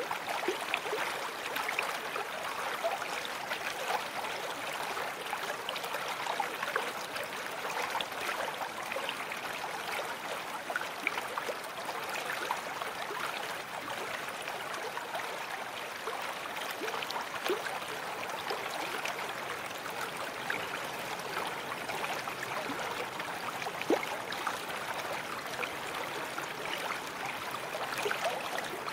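A babbling brook flowing steadily: a continuous rush of water full of small gurgles and splashes.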